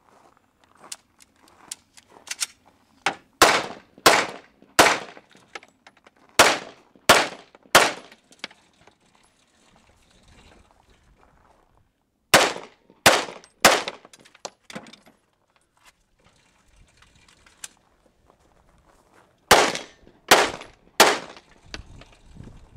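Gunshots fired in quick groups of three, about two shots a second, four groups in all with pauses between them, and a few fainter sharp cracks in between.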